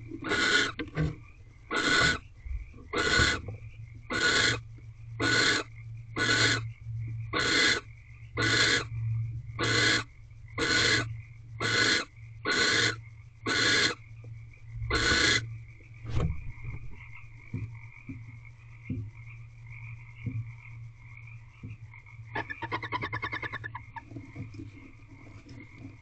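Barn owl giving a run of harsh hissing calls, about one a second, fourteen in all, stopping about 15 seconds in. About 22 seconds in there is a brief, fast-pulsed chittering call. A steady low electrical hum runs underneath.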